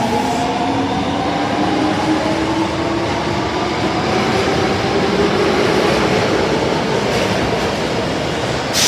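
Osaka Metro Tanimachi Line 22-series subway train pulling away. Its traction motors whine in several tones that climb slowly as it gathers speed, over steady wheel and rail noise. A sudden rush of hiss comes in at the very end.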